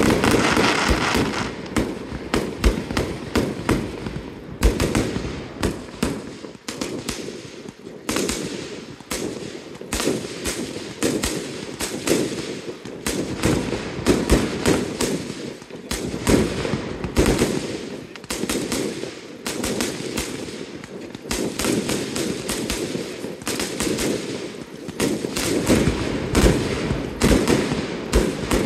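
Fireworks display going off: aerial shells and rockets bursting in a rapid, unbroken string of bangs and crackles.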